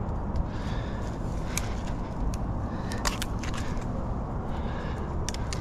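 Climbing noise against a tree: hands and body scraping on bark and branches, with scattered sharp clicks and cracks of twigs and bark, the loudest about three seconds in, over a steady low rumble.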